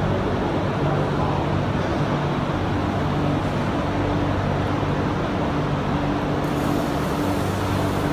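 Heavy truck diesel engine idling steadily, an even low hum.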